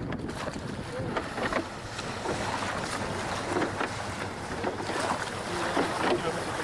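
Wind buffeting the microphone, with water splashing and rushing along the hull of a yole under way.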